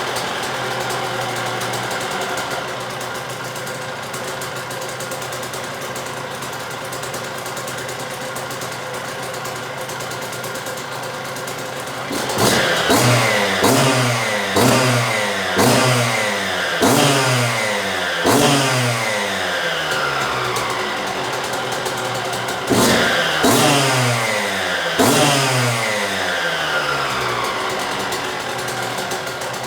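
1998 Suzuki RM125 single-cylinder two-stroke engine running after a full rebuild: steady idle for about twelve seconds, then the throttle is blipped again and again, the revs jumping and dropping back each time, in two runs of blips with a short pause between.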